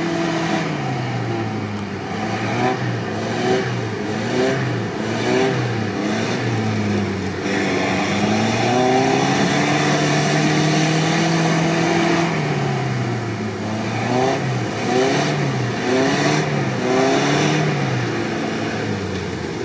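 UAZ Patriot's engine revving up and down over and over as the SUV churns through a deep mud rut with all its differentials locked, wheels spinning and throwing mud and water.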